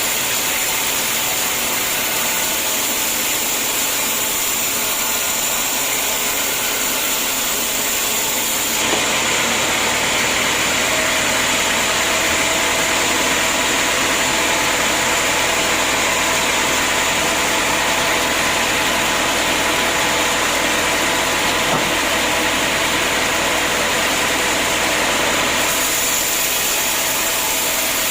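Sawmill machinery running steadily, with an abrupt change in its sound about nine seconds in that switches back near the end.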